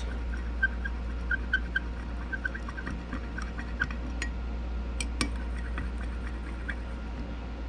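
Metal stir stick clinking and scraping against a glass measuring cup while stirring colorant into hot liquid soft plastic. The clinks are light and irregular, with a few sharper ticks, over a steady low hum.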